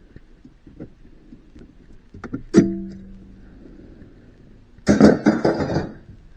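A sharp metallic clank about two and a half seconds in that rings briefly, then about a second of rattling and clattering of metal parts, as hardware is handled in a truck dashboard.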